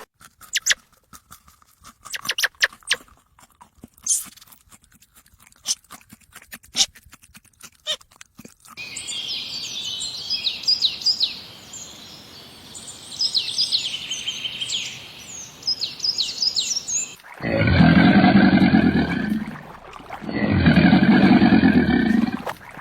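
Scattered crunching clicks for the first eight seconds or so, then birds chirping for about eight seconds, then two long, loud, low animal calls.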